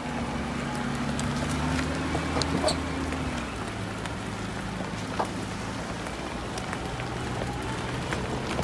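Off-road vehicle's engine running steadily at low revs, with a constant crackling patter and scattered ticks over it; one tone of the engine drops away a little past three seconds in.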